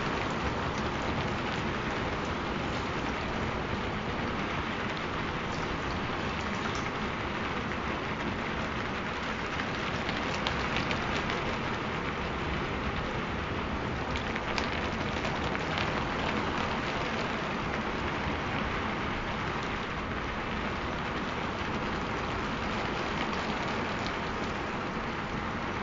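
Steady rain falling: an even hiss with scattered faint drop ticks, unchanging throughout.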